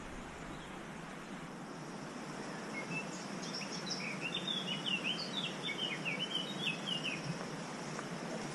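A small songbird singing a quick string of short chirping notes, starting about three seconds in and stopping about four seconds later, over a steady background hiss.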